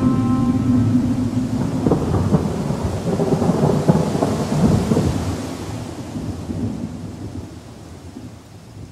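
A long roll of thunder, rumbling with sharp cracks, loudest a few seconds in and then dying away. Held music notes fade out in the first second.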